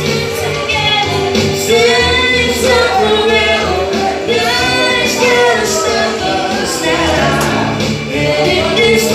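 A woman and a man singing a pop duet into microphones over instrumental backing, amplified through a PA.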